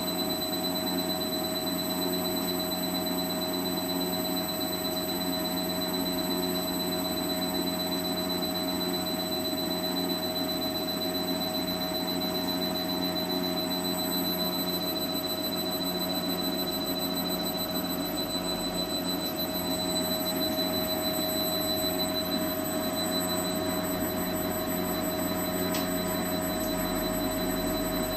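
Yaskawa A1000 inverter (variable-frequency drive) running on test after repair, giving a steady low hum under a thin, steady high-pitched whine that does not change.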